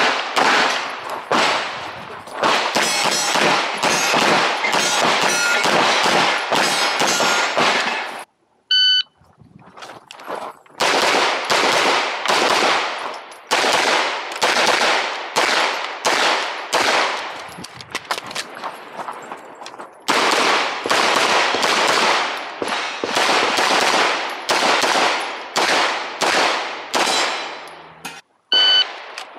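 Walther PDP Fullsize semi-automatic pistol firing rapid strings of shots, three or four a second. The strings break about eight seconds in, where a short ringing ding sounds, then resume. Another brief ding comes near the end as the firing stops.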